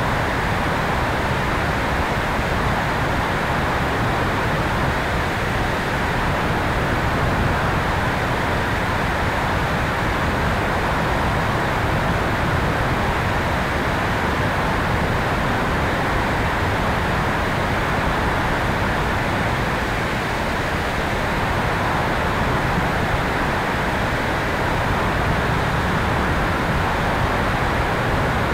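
Steady rushing airflow over the tail-mounted camera of an electric RC airplane in flight, an even noise without any clear tone from the motor.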